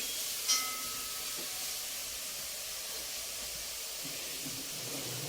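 Steady faint hiss, with a single click and a faint short beep about half a second in, as a button is pressed on the control panel of an LG washing machine.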